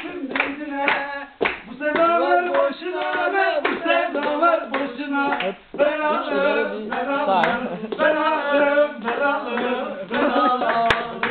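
A group of people singing a Turkish folk song together without instruments, keeping time with steady rhythmic hand claps. Clapping leads at first, and the voices come in strongly about a second and a half in.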